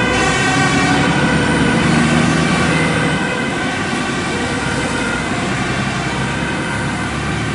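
Siren of a fire service van sounding on an emergency run over engine and road noise, a little fainter after about three seconds as the van draws away.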